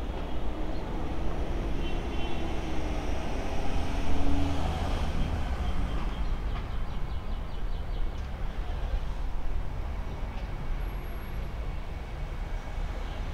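Road traffic: a vehicle passes, loudest about four seconds in, over a steady low rumble.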